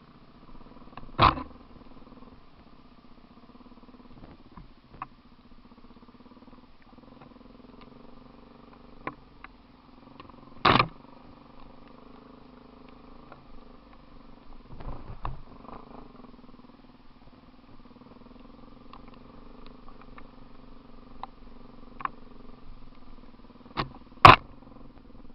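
Off-road vehicle engine running at a steady idle, with three sharp knocks about 1 s, 11 s and 24 s in, the last the loudest, and a few lighter clicks between.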